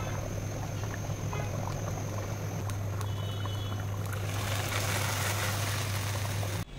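A pot of beef trotter nihari at a rolling boil, bubbling and popping over a steady low hum. About four seconds in, a ladle skimming the froth adds a brighter splashing hiss, and the sound cuts off suddenly near the end.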